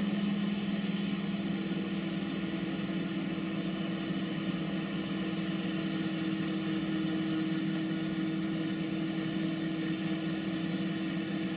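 Heavy farm machinery engine running with a steady drone, holding an even pitch throughout.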